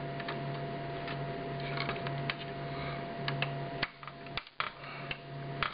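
A series of scattered sharp clicks as DDR3 memory sticks are pressed down into motherboard DIMM slots and the slots' retention clips snap shut, over a steady low hum.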